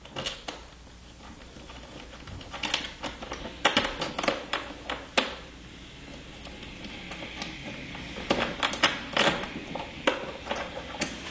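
Irregular small clicks and taps of screws, nuts and a metal back plate against a Tour-Pak shell as finger-tight screws are backed out and the plate is taken off, coming in two clusters.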